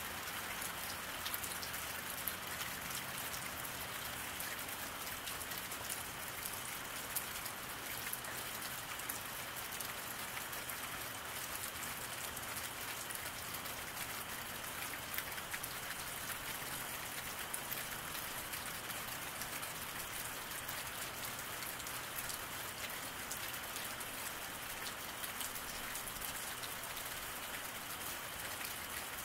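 Steady rain falling on a wet road, an even hiss with many small drop ticks and an occasional louder drip.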